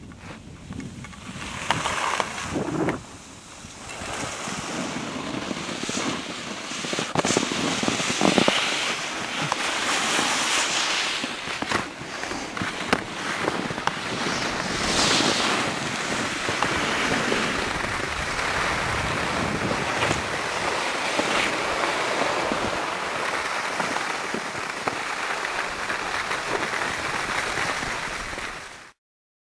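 Wind rushing over the camera microphone and skis hissing over the snow during a downhill run, an uneven whooshing that swells and fades. It is quieter for the first few seconds and cuts off suddenly near the end.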